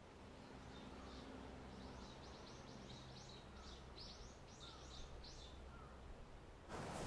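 Faint outdoor background with a bird calling in a run of short, high chirps, a couple a second. The background gets louder just before the end.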